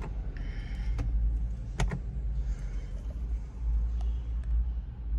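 Inside a car cabin: a low steady rumble with a few sharp clicks and taps, one at the start, one about a second in and another near two seconds.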